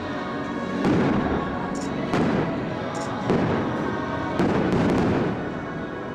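Aerial fireworks shells bursting, four booms about a second apart, each fading out, over faint show music.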